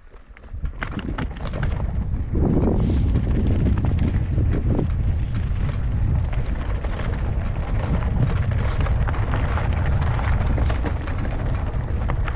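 Wind rumbling on the microphone of a mountain bike riding down a rocky mountain path, with the tyres and bike clattering over stones. It starts up about half a second in as the bike gets moving, then runs loud and steady.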